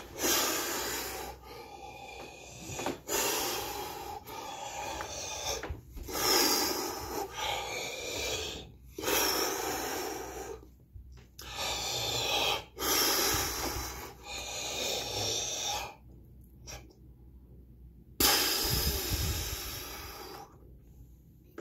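A man breathing deeply and forcefully, Wim Hof-style: a run of long, rushing breaths in and out, each one to two seconds. A short pause comes about 16 seconds in, then one more deep breath, then quiet.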